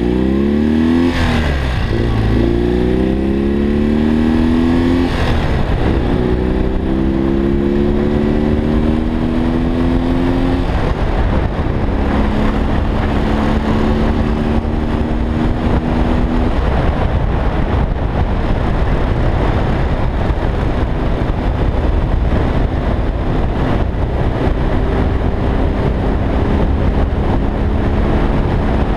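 BMW R45's air-cooled flat-twin engine pulling away and accelerating through the gears, its pitch rising and dropping back at shifts about one, five and ten seconds in. It then holds a steady cruise under a heavy rush of wind noise.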